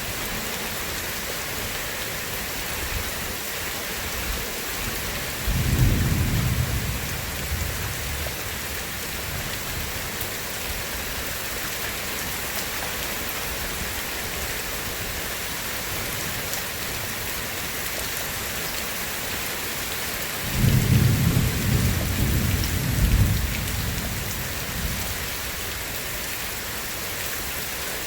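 Steady heavy rain hissing, with two low rolls of thunder: a short one about five seconds in and a longer, louder rumble about twenty seconds in that dies away over several seconds.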